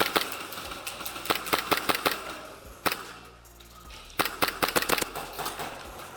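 Airsoft guns firing in quick runs of sharp pops: a couple at the start, a string of about five a second in, a single shot near three seconds, and a faster string of about eight after four seconds.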